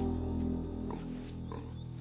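Background music: a sustained low chord held steady and slowly fading.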